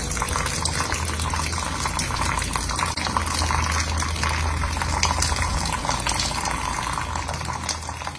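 Thin stream of water from an Arduino automatic watering system pouring and splashing into a plant pot's soil, with a steady low hum underneath.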